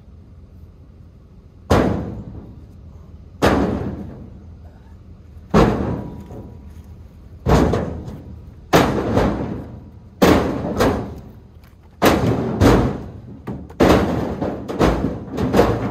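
Split firewood pieces tossed onto a flatbed trailer, each landing with a sharp wooden knock. The knocks come every second or two at first, then faster and sometimes in pairs near the end.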